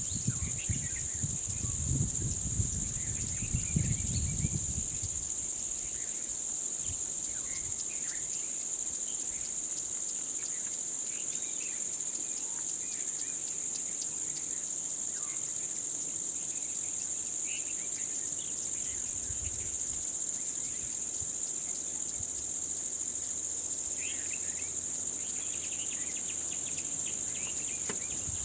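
Steady high-pitched drone of insects in the forest, unbroken throughout, with a few short chirps above it and a low rumble during the first few seconds.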